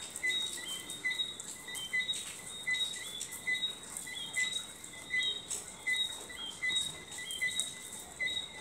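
Short, high chirps repeating evenly, about three every two seconds, each a brief two-note peep, with a light crackle of clicks behind them.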